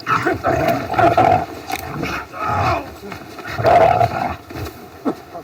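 Animal vocal sounds from a film soundtrack, played through a portable projector's built-in speaker, in about four loud bursts.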